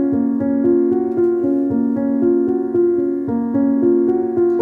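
Background music: a piano playing a steady, flowing run of notes.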